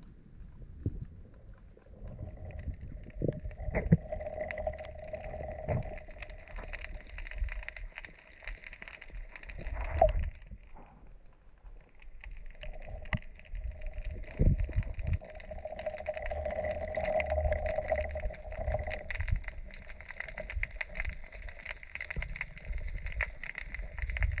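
Underwater sound of a motorboat's engine and propeller whining in the distance, swelling and fading twice, over scattered clicks and low knocks.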